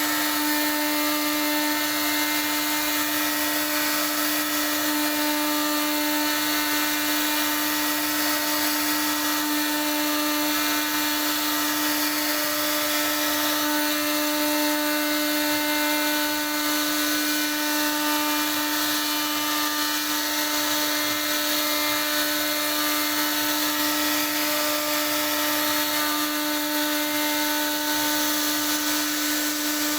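CNC router spindle running steadily while its bit carves wood: a constant whine over a hiss of cutting.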